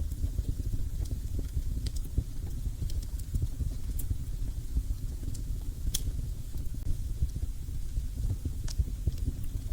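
Wood fire burning in a fireplace: a steady low rumble of flames with a few sharp crackles and pops, the loudest about six seconds in.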